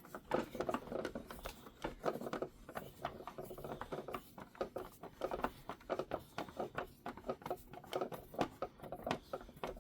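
Small screws being driven by hand into the plastic base of a toy Batmobile: many quick, irregular small clicks and scrapes of the screwdriver and the plastic parts being handled.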